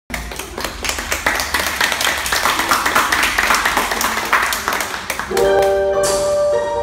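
Hand clapping over room noise, then about five seconds in slow music with held keyboard tones begins.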